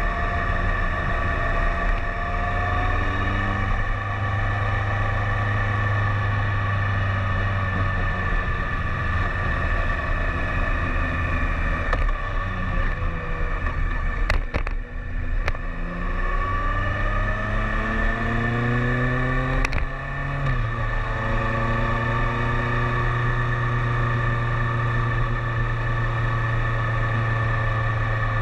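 BMW K1300S motorcycle's inline-four engine running under way, with rushing wind noise. About halfway through the engine note drops off, then climbs again as the bike accelerates, and holds steady near the end.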